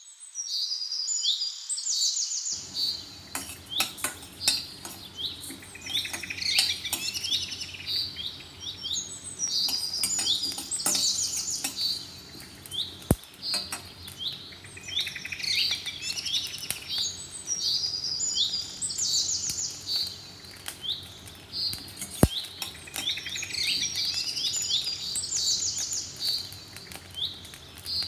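Songbirds chirping and trilling, the same bursts of song coming back every several seconds, over the faint scrape and clink of a spatula stirring grains in a metal wok, with a couple of sharp ticks.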